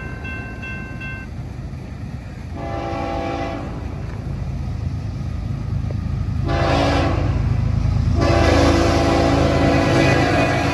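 Train horn sounding several blasts, with a short one early and a long held blast in the second half, over the low rumble of the train that grows steadily louder as it approaches.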